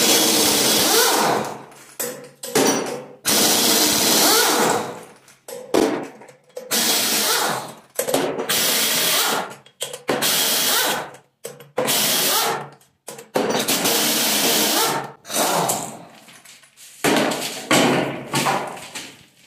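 A power tool runs in about ten short bursts of a second or two each, spinning out the flywheel bolts of a Toyota 1FZ straight-six engine.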